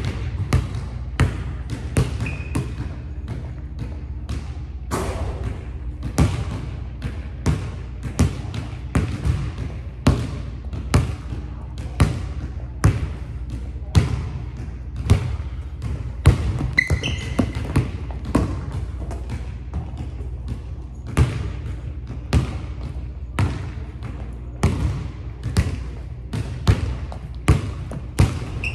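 Basketball dribbled steadily on a hardwood gym floor, bouncing roughly one and a half times a second, each bounce echoing briefly in the hall. A few short high squeaks of sneakers on the court come through, about two seconds in, near the middle and at the end.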